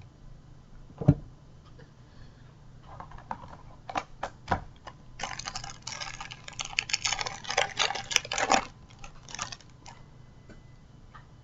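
A Match Attax card packet being torn open, its wrapper crackling in a dense run of about three and a half seconds, after a couple of knocks of handling on the table.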